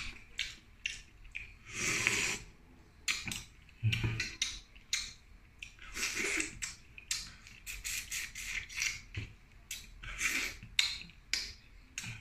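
Close-up eating sounds of cooked shrimp being eaten by hand: many short clicks and crackles of shells being peeled, and several noisy sucks and slurps at the mouth, about four seconds apart.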